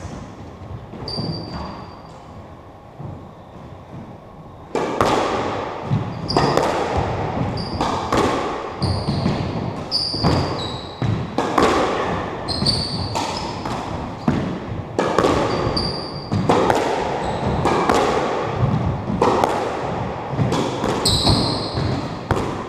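Squash rally: the ball cracking off rackets and the front wall in quick succession, each hit echoing around the court, with rubber-soled shoes squeaking on the wooden floor. The rally starts about five seconds in, after a quieter stretch with only a few squeaks.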